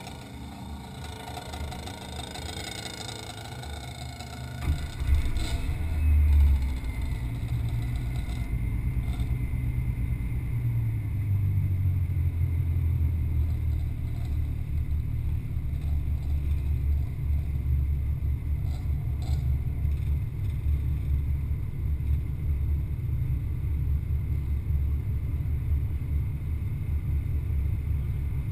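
An ATV engine close to the microphone starts about five seconds in with a short loud surge, then runs at a steady low idle; faint engines of other quads sound in the background.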